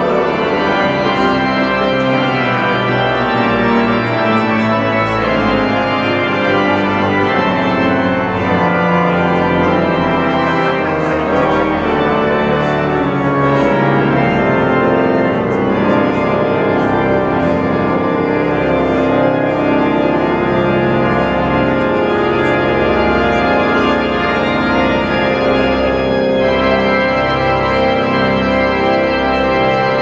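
Cathedral pipe organ playing held chords over deep bass pedal notes, the harmony moving every second or so and ringing in the large stone building.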